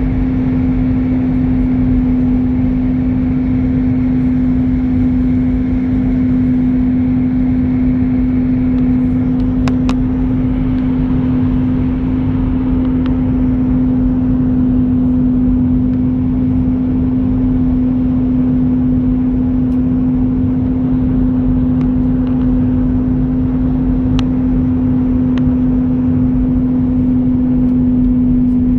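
Airliner cabin noise from a window seat over the wing on final approach to landing: steady jet engine drone and airflow rumble with a strong constant low hum. A higher whine stops about nine seconds in, and a few faint ticks come through.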